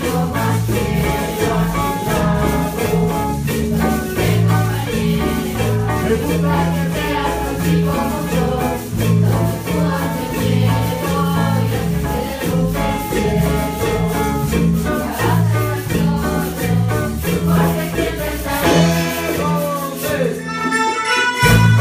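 A school ensemble playing Latin American music: students singing over a steady beat from drum kit, hand drums and shakers, with melodicas playing the tune; the texture changes near the end as the melodicas come to the fore.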